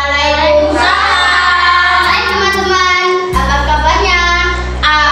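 Children singing a song together over a musical backing track with a steady bass line that shifts to a new note about three seconds in.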